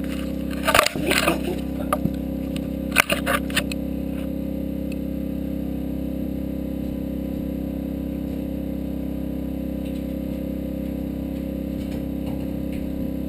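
Knocks and clatters of the camera being handled and set in place, about a second in and again around three seconds, over a steady machine hum.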